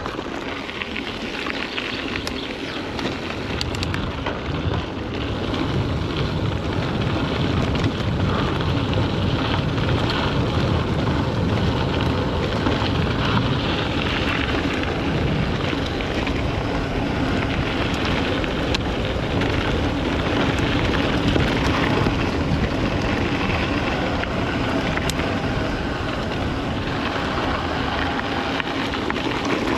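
Steady rushing wind on the microphone and tyre noise from a mountain bike being ridden along a trail. A faint steady hum joins about halfway through.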